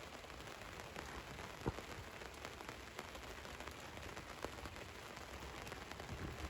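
Rain falling on a van, a steady patter of drops with scattered small ticks and one sharper drop tap a little under two seconds in.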